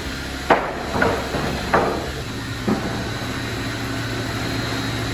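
Machinery running with a steady low hum, with four sharp knocks in the first three seconds.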